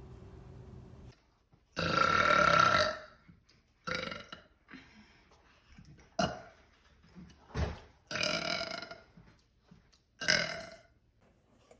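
A woman burping about seven times in a row. There is a long burp about two seconds in, a run of short ones, another long one about eight seconds in, and a short one near the end.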